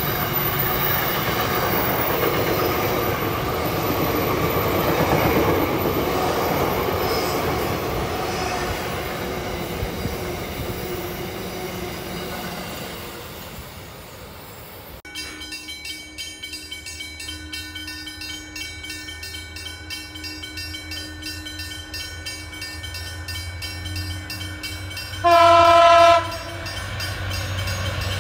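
A freight train of container wagons rolling past close by with a rumble and rattle of wheels, which fades as the train draws away. Then a diesel locomotive approaches with a low steady drone and sounds a loud multi-tone horn chord for about a second near the end.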